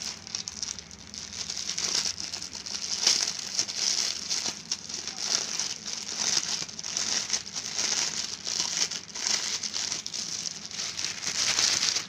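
Clear plastic packaging bag crinkling and rustling irregularly as hands open it and pull a T-shirt out.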